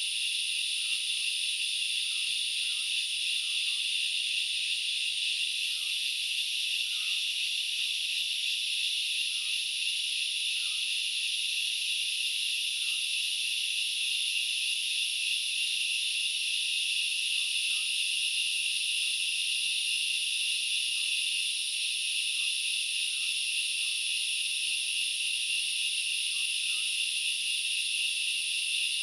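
Dense, steady chorus of forest insects: a continuous high-pitched buzzing in two pitch bands that never lets up. Faint short chirps are dotted through it every second or so.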